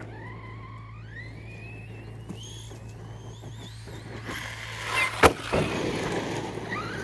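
Team Associated Rival MT8 RC monster truck's brushless electric motor, running on 6S, whining and climbing in pitch as the truck accelerates, then a rush of noise and a single sharp thump about five seconds in, the loudest sound. The motor whine rises again near the end.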